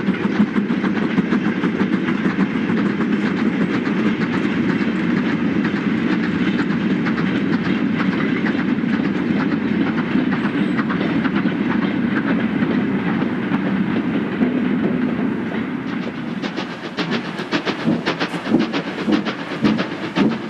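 Steam-hauled freight train of mineral wagons passing, a steady rumble and clatter of wagon wheels on the rails. About three-quarters of the way through this gives way to the regular exhaust beats of a steam locomotive working its train.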